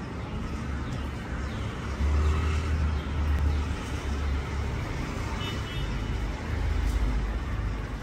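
Low, uneven outdoor background rumble, stepping up sharply about two seconds in and swelling again near the end.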